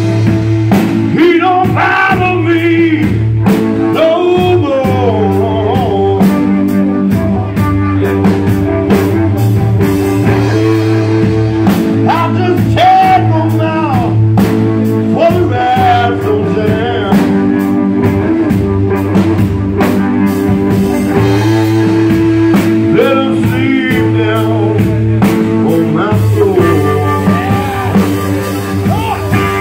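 Live blues-rock band playing loud: electric guitar with bent notes over bass guitar and drum kit.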